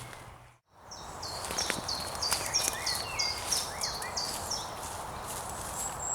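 Woodland birdsong: a songbird repeating a short high phrase about three times a second for a few seconds, with a few faint knocks or steps mixed in.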